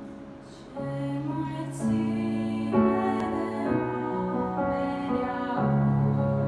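Slow, held chords played on a digital piano, changing every second or two in a gentle, tender style.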